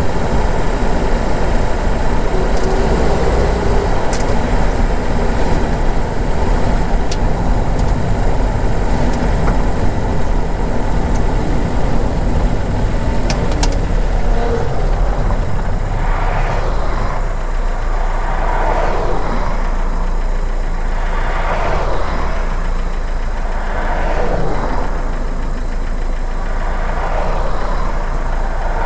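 Car engine running, with a steady low rumble heard from inside the cabin as it drives a rough, muddy track. From about halfway through, the rumble eases slightly and a series of rising and falling swooshes comes every second or two.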